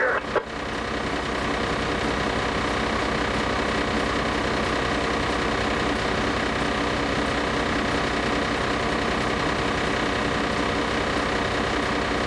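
Fire engine's diesel engine running steadily at idle, heard from inside the cab. A short click sounds about half a second in.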